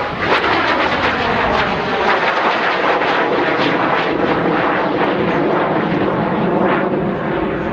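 Gloster Meteor T.7 flying past, its twin Rolls-Royce Derwent turbojets making a loud, rushing jet noise. A whine falls in pitch over the first few seconds as it passes, and the sound eases slightly near the end as it flies away.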